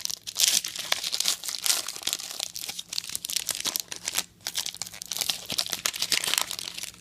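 Trading-card pack wrappers crinkling and tearing as packs are ripped open and handled, a dense run of sharp crackles that stops abruptly near the end.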